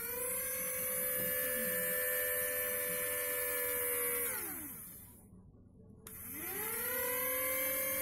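Small brushed DC toy motors driving tiny propellers, switched on from a hand-held switch board: a high motor whine rises as they spin up, runs steady, then winds down and stops a little after four seconds. About a second later the whine starts again and climbs back to a steady pitch.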